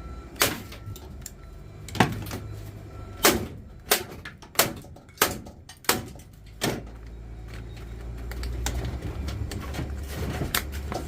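A series of sharp knocks and clatters from scrap items being handled and tossed down, about eight hits with a quick run of them in the middle. A low rumble builds in the background in the second half.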